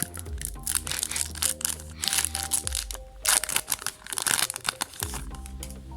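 Foil booster-pack wrapper crinkling and being torn open in irregular crackly bursts, over steady background music.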